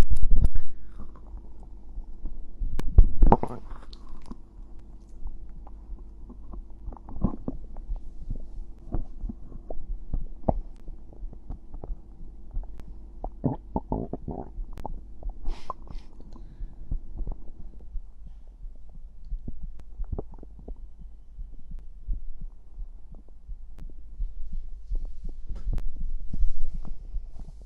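A person's stomach gurgling and rumbling after drinking carbonated cider, in irregular squelchy gurgles over a steady low hum. The loudest gurgles come about three seconds in and again around fourteen seconds.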